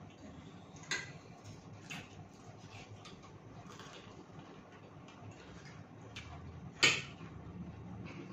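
Quiet eating sounds at a table: metal forks clicking and scraping against plates, with one sharp clink about seven seconds in.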